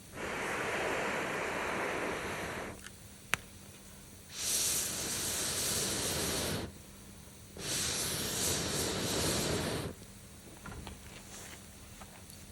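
Three rushes of air, each about two seconds long, starting and stopping abruptly, with a single sharp click between the first two.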